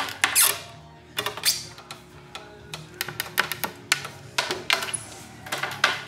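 Taymor door closer swinging a plywood door shut at a very fast sweep setting: squeaking from the closer and sharp knocks as the door and latch hit the frame, repeated several times.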